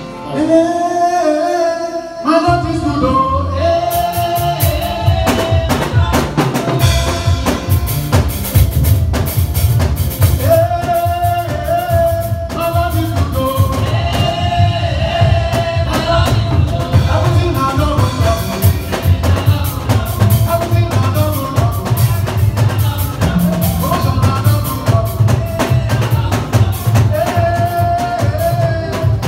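A song with a singing voice over a drum kit and bass; the drums and bass come in about two seconds in and keep a steady beat.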